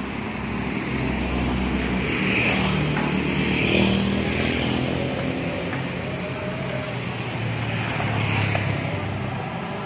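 Street traffic: motorbike engines passing, loudest about four seconds in and again around eight seconds.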